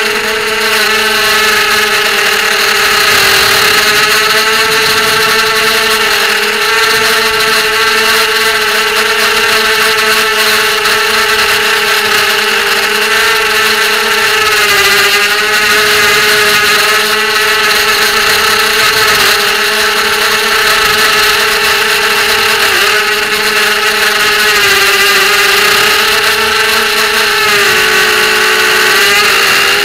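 ZMR250 racing quadcopter's brushless motors and propellers whining in flight, heard from the onboard camera. The pitch rises and falls with the throttle, dipping briefly near the middle and again near the end.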